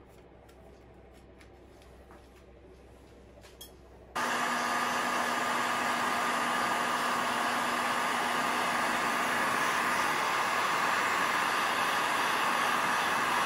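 A few faint clicks of handling, then about four seconds in a cordless heat gun switches on and blows steadily with a constant motor hum, softening the old tape adhesive on the steel frame.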